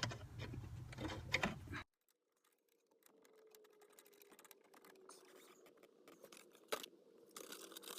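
Faint light clicks and metal handling noise of hand tools fastening the steering-column bolts, broken by about a second of dead silence, with one sharper click near the end.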